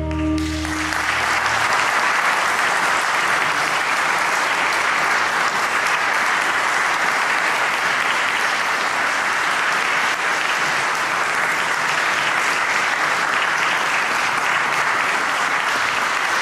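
A jazz quintet's final held chord ends about a second in, then steady audience applause.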